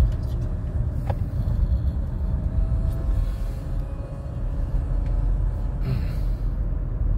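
A car's steady low road and engine rumble, heard from inside the cabin while driving along a paved road, with a faint tick about a second in.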